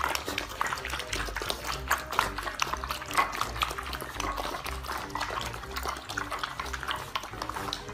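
Several puppies eating from bowls, with quick, irregular wet smacking and lapping.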